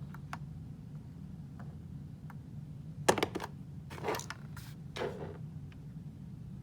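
A few light clicks and knocks, about three to five seconds in, over a low steady hum.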